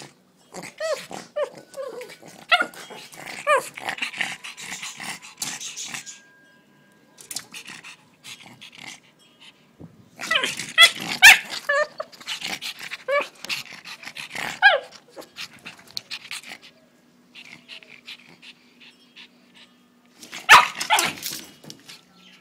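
Pug barking and growling in three bouts of short yapping calls that drop in pitch, worked up and getting fierce.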